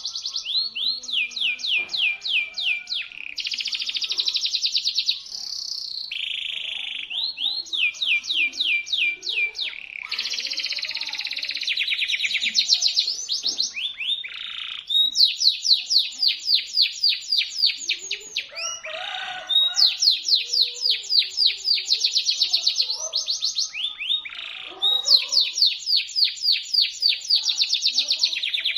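Domestic canary singing a long continuous song of fast repeated trills and buzzy rolls, changing phrase every second or two, in the shrill, piercing style of the Indonesian local canary.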